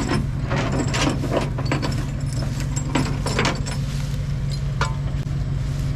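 A vehicle engine idling steadily, under irregular rustling and crunching footsteps through tall weeds.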